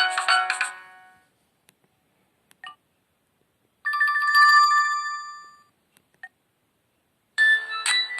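Alcatel OT-282 mobile phone ringtones. A polyphonic MIDI-style melody fades out in the first second, then a few faint clicks, a short chime of about two seconds in the middle, and a new melody starting near the end.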